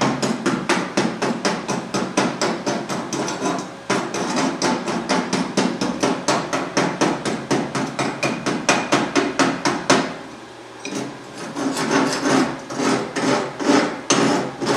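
Chipping hammer tapping rapidly and steadily on a flux-core fillet weld in 10-gauge mild steel, knocking the slag coating off the bead. The tapping stops for about a second about ten seconds in, then starts again.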